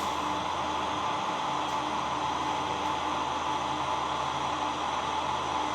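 Steady hiss with a faint steady hum underneath, unchanging and with no distinct sounds, like the background noise of a security-camera recording.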